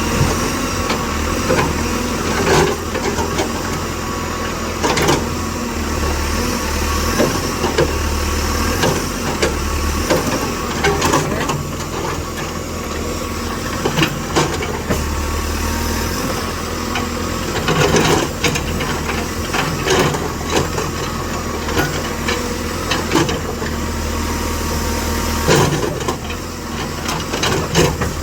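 Engine of a tractor cutting a road into a hillside, running steadily with a low rumble, with irregular knocks and clatters throughout.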